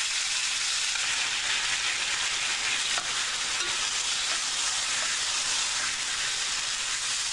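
Beef steak sizzling in a hot non-stick frying pan, with teriyaki sauce just added to the pan: a steady frying hiss, with a few faint clicks as tongs shift the meat.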